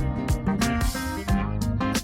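Background music with a guitar and a steady beat.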